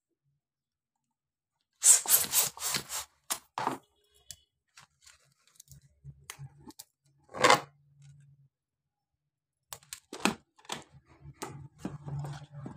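Fingers handling and twisting the neck of a small latex balloon: rubbery crackles and squeaks, starting about two seconds in with a fast, loud run. Scattered small clicks follow, with one longer rasp about halfway through and more crackles near the end.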